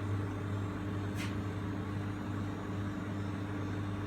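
Milk vending machine humming steadily while it dispenses milk through its nozzle into a bottle, with a short hiss about a second in.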